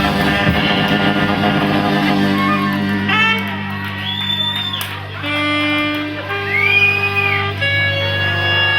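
Live rock band playing, guitar-led. The drums drop out after about the first second, leaving held guitar notes over a steady low drone, with a few high notes that slide up and back down.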